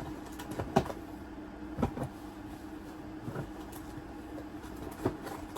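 Handling noise from opening small flashlight boxes: a few scattered clicks and knocks of cardboard and plastic packaging over a steady low hum.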